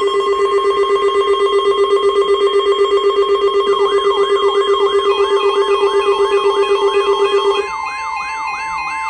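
Electronic alarm siren tones, loud and layered. A steady tone pulses rapidly, and about four seconds in a fast, repeating yelp sweep joins it, roughly three sweeps a second. Near the end the low steady tone drops out, leaving the yelp over a high warbling two-tone pattern.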